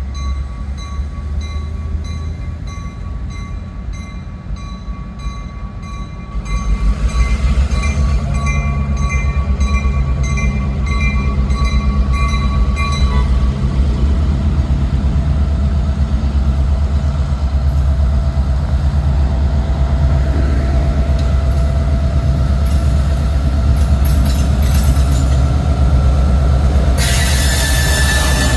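EMD GP38-2 diesel locomotive's two-stroke V16 engine rumbling as it approaches, growing suddenly louder about six seconds in, with a bell ringing until about halfway through. Near the end a loud hissing rush as the locomotive draws level.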